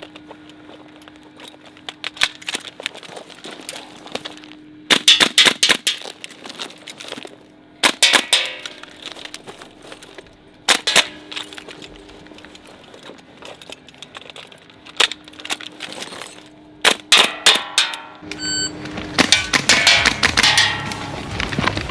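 Airsoft gas blowback rifle firing several short bursts of rapid sharp shots, a few seconds apart. Music comes in near the end.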